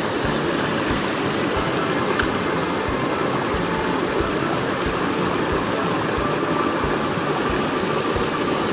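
Small mountain creek rushing and splashing over rocks in shallow cascades, a steady rush of water.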